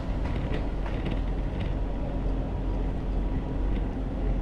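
Steady low rumble of a tow vehicle's engine pulling a bass boat on its trailer slowly forward.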